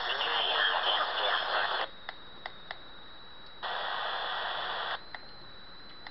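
Silvercrest SWED 250 A1 shortwave receiver's speaker playing an upper-sideband amateur voice transmission on 14215 kHz in FM mode, so the voice comes out garbled and distorted. After about two seconds it drops to low hiss with a few sharp clicks, a second of even rushing noise comes in about halfway, and a faint steady high whistle runs underneath.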